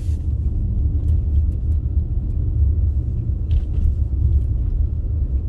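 Steady low rumble inside a moving car's cabin: engine and tyre noise while driving on a snow-packed road.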